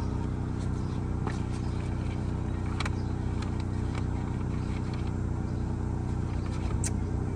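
Chevrolet Equinox engine idling steadily, running to circulate freshly changed oil, with a few light clicks, about three, spread through it.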